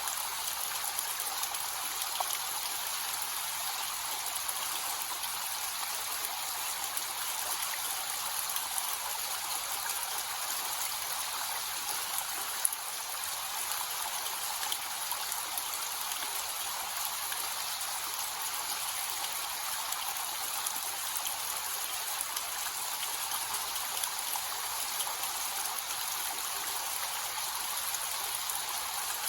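Small, low-flow waterfall: water falling and splashing steadily, a bright, even hiss with hardly any low rumble. One brief sharp tick near the middle.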